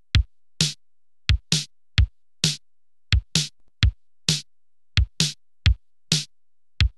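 Music: a bare drum-machine beat of deep kick-drum hits alternating with sharp, hissy high hits, about two hits a second, with no melody.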